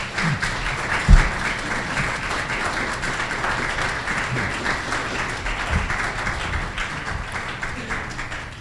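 Audience applauding, a dense patter of many hands clapping that eases near the end. A single low thump about a second in.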